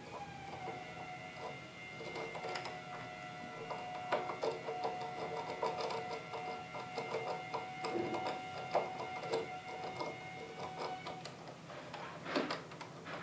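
A lock pick and tension wrench working in the pin cylinder of a brass residential knob lock: a dense run of small metallic clicks and scrapes through repeated quick attempts to pick it. Under it runs a steady high whine that stops about eleven seconds in.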